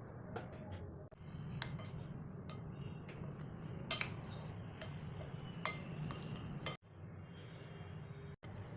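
Kitchen utensils clinking and knocking against cookware a few times, over a steady low hum.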